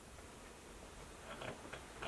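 Faint irregular taps and clicks from a male northern cardinal at a clear plastic window feeder, with a few short clicks close together about a second and a half in.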